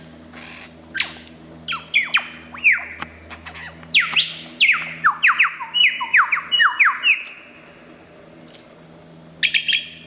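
Superb lyrebird singing: loud whistled notes that fall sharply in pitch, with a fast run of about a dozen of them from about four seconds in, scattered notes before it, and a short burst near the end.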